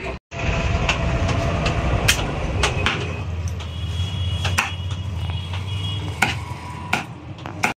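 Butcher's cleaver chopping a dressed chicken on a wooden stump block: about ten sharp knocks at irregular intervals, over a steady low mechanical rumble.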